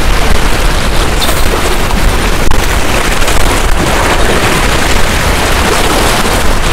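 Wind buffeting the microphone: a loud, steady rumble with hiss over it.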